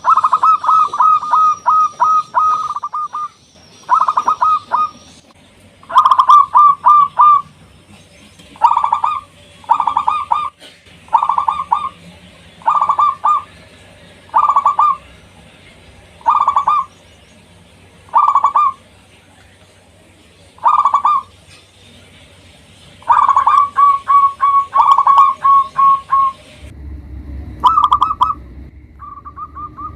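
Zebra dove (perkutut) cooing: phrase after phrase of rapid staccato coos, each about a second long with short pauses between, with longer runs at the start and near the end.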